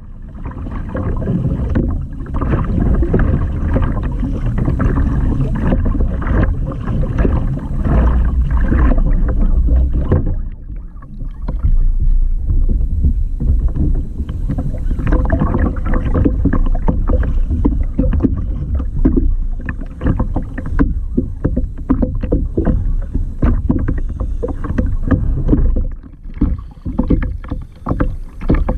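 Seawater splashing and sloshing around a kayak in a continuous run of short, irregular splashes, heavy and low. It eases briefly about a third of the way in and turns quieter and choppier near the end.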